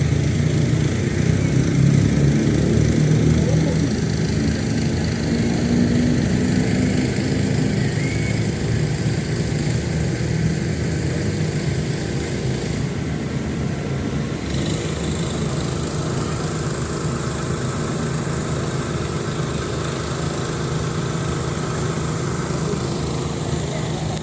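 A small engine running steadily, a constant low drone that holds the same pitch throughout.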